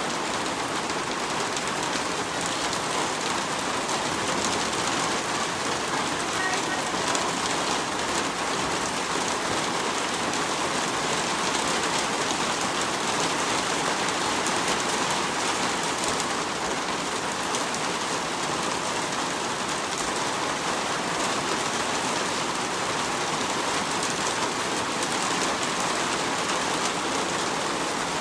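Storm rain coming down steadily: a dense, even patter of drops that does not let up.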